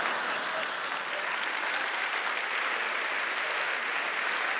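Studio audience applauding, a steady, even clapping.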